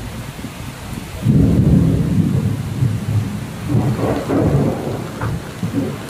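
Heavy rain falling steadily, then thunder breaks in about a second in with a loud low rumble that rolls on in waves and swells again midway.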